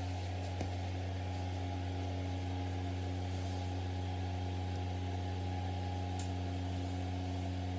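Steady low electrical or motor hum, unchanging, with a few faint higher tones held above it.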